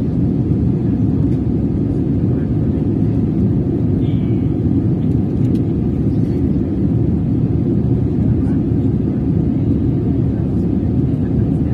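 Steady low rumble of a jet airliner in flight, its engines and airflow heard from inside the passenger cabin.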